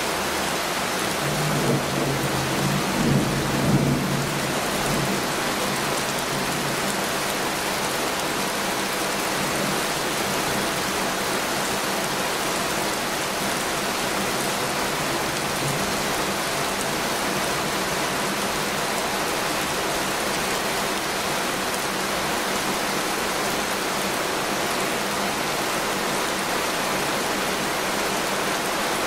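Heavy rain falling steadily, with a low rumble of thunder rolling in bumps about two to four seconds in.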